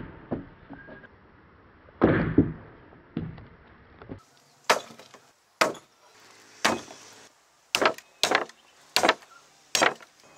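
Heavy cleaver chops, forged from leaf-spring steel, cutting into green coconuts and onto wood: a few heavy chops in the first half, then a run of about seven sharp, separate chops at roughly one a second.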